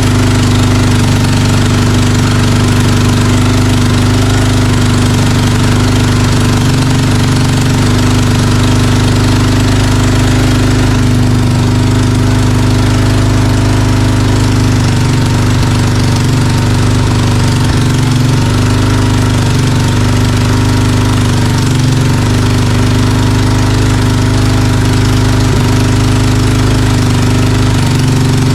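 1996 Honda Fourtrax 300's air-cooled single-cylinder four-stroke engine idling steadily after a fresh top-end rebuild with a new piston and valves. It is running in, burning off the oil used to lube the cylinder during assembly.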